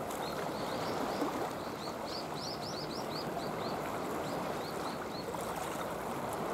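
Steady wash of sea water, with a bird calling a quick run of short, high, falling chirps, about three a second, that stops about two-thirds of the way through.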